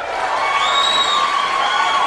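Crowd cheering and whooping: many voices shouting at once over a haze of noise, loud and steady.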